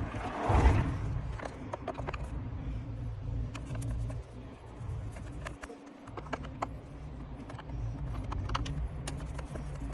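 Irregular light clicks and taps over a steady low rumble, with a brief rustle about half a second in.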